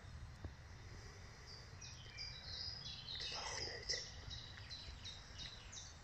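A small songbird singing: a quick run of short high notes, repeated over and over from about a second and a half in, over a low steady rumble.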